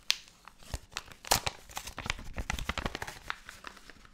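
Packaging being handled and unpacked: crinkling rustles with sharp clicks and snaps, busiest from about a second in until near the end, with the loudest snap just over a second in.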